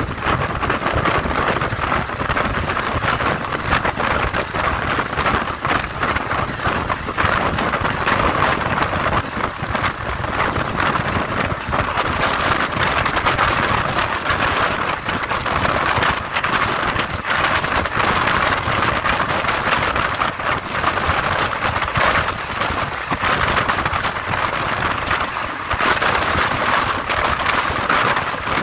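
Indian Railways passenger train running at speed, heard from an open coach doorway: a steady loud rush of wheels on the rails and air, with wind on the microphone.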